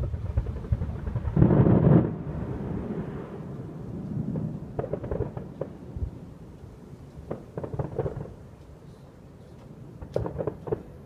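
Distant fireworks booming and echoing: a sharp bang at the very start, a louder rolling boom about a second and a half in, then quieter rumbling with scattered clusters of sharp pops.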